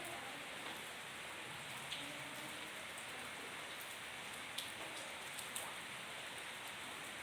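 Heavy rain falling steadily, a constant hiss with scattered sharp ticks of drops striking close by.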